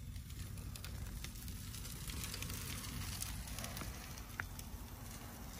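Small children's bicycle tyres rolling over a concrete driveway strewn with pine needles and grit, giving a faint irregular crackling over a steady low rumble.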